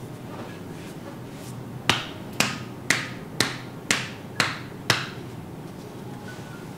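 Seven sharp slapping pops from hand-percussion massage strikes, evenly spaced about two a second.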